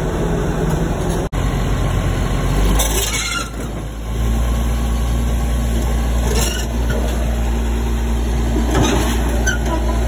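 Caterpillar crawler bulldozer's diesel engine running under load as it crawls up the ramp of a lowbed truck trailer. From about four seconds in it settles into a steady, deep drone, with a few brief sharper sounds over it.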